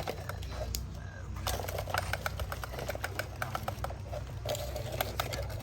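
A toy construction vehicle's small electric motor and plastic gears whirring steadily, with rapid, irregular clicks.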